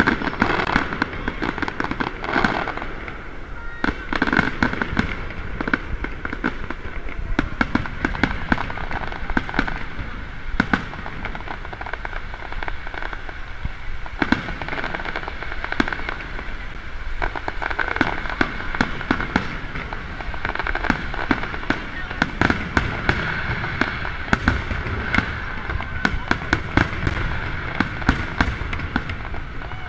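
Aerial fireworks display: a continuous run of shell bursts, bangs and crackle following one another closely, with crowd voices underneath.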